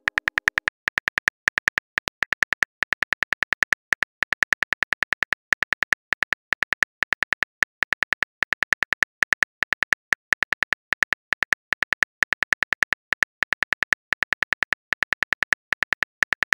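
Simulated phone keyboard typing clicks from a texting-story app, as a message is typed out: a rapid, uneven run of short tapping clicks, several a second, with brief pauses between runs.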